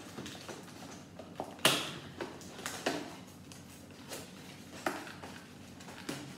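Small cardboard Lego set box being handled and opened by hand: a few sharp snaps and scrapes of cardboard as the end flap is worked open, the loudest about a second and a half in.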